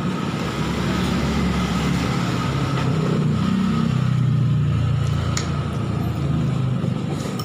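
Road traffic with a low engine rumble that swells louder about halfway through as a vehicle passes. A couple of sharp clinks of a metal fork and spoon on a plate come through as well.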